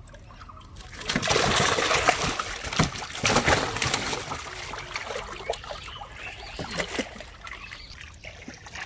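A netful of live fish tipped into water in a tarp-lined boat hold, thrashing and splashing hard for a few seconds starting about a second in, then dying down to scattered smaller splashes.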